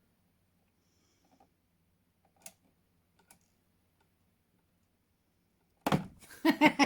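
Quiet room with two faint light clicks, about two and a half and three and a half seconds in. Near the end a sudden loud outburst of voices starts.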